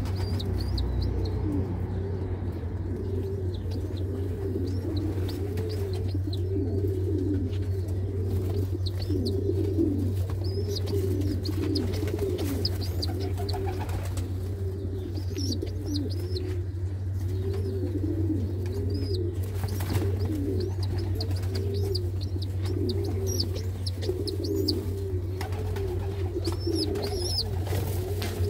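Domestic pigeons cooing over and over, a continuous run of low rising-and-falling coos, with short high chirps at times. A steady low hum runs underneath.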